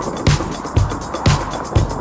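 Background music with a steady driving beat: a low kick drum about twice a second with hi-hat ticks between.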